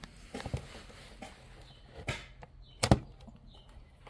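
Small plastic clicks and knocks as a tool pries a little wiring plug out of the back of a Nissan Pathfinder instrument cluster, the sharpest knock about three seconds in.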